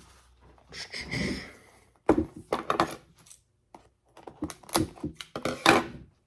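Handling of a trading card game starter deck box and its contents on a tabletop: a brief rustle about a second in, then a run of sharp clicks and light knocks of cardboard and small plastic pieces being set down.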